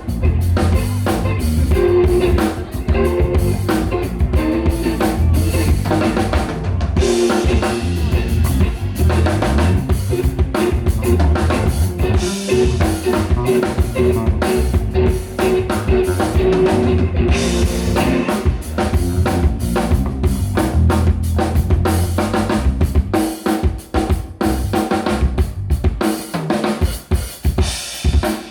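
Live band playing: drum kit with kick, snare and rimshots under bass and a pitched guitar line. About four-fifths of the way through, the low bass drops away and the drums carry on with only a little of the band behind them.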